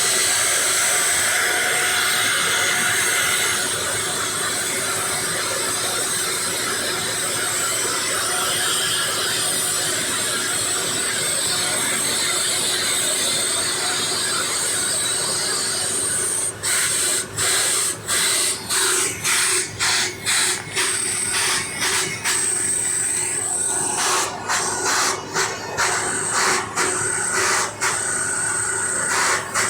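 Jet turbine machinery serving a Boeing 737 whose APU is inoperative: a steady rush of air with a high whine and a lower steady hum. From about halfway through, the sound repeatedly dips briefly.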